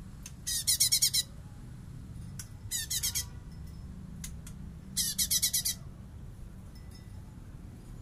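Blue-winged leafbird (cungkok) singing: three short bursts of rapid, very high-pitched notes, each under a second long, over a low steady background rumble.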